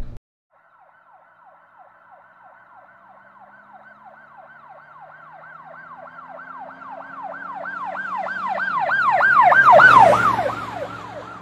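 Emergency vehicle siren in a fast yelp, about three sweeps a second. It grows steadily louder as the vehicle approaches, is loudest about ten seconds in, and then fades.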